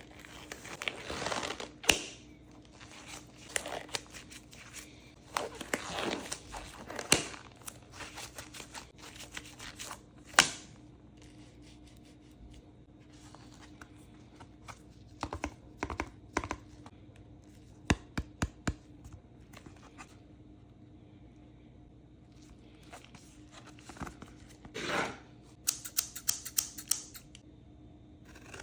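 Small product packaging being handled and opened: tearing and crinkling with scattered sharp clicks and taps, in bursts with quieter pauses between.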